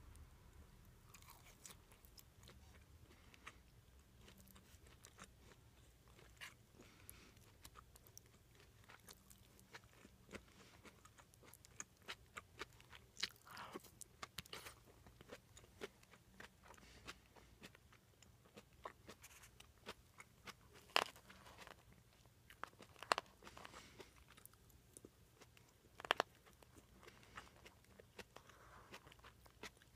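Close-miked chewing and crunching of food, with scattered short crunches and clicks, the loudest three in the second half.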